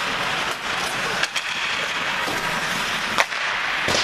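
Ice hockey play in an echoing indoor rink: skates scraping over the ice under a steady arena hiss, with sharp clacks of stick and puck, one about a second in and a louder one about three seconds in.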